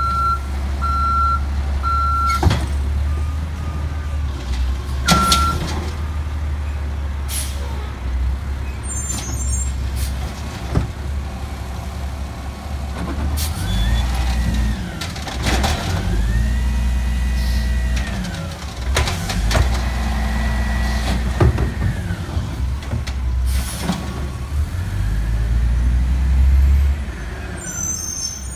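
Diesel automated side-loader garbage truck at work: a few reversing beeps in the first seconds over the engine's steady rumble, then the engine revs up, holds and drops back about four times. Scattered clanks and air-brake hisses come in between.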